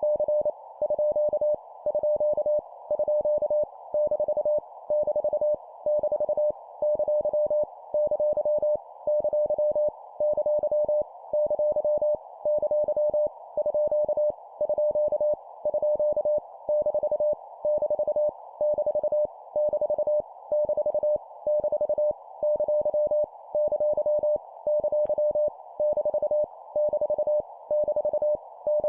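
Morse code (CW) sent at 25 words per minute: a single steady mid-pitched tone keyed on and off in quick dots and dashes over a band of hiss. It spells out random punctuation marks, each sent three times.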